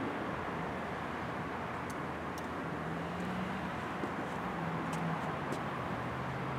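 Steady outdoor traffic noise, with a low engine hum from a vehicle that comes and goes through the middle and ends lower in pitch, and a few faint clicks.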